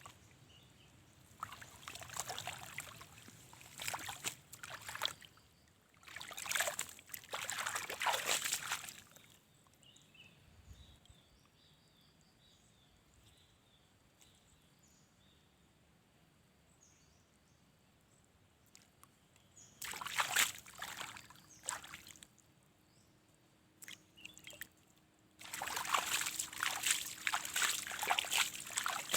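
Water sloshing and trickling in several bursts, with a quiet stretch in the middle.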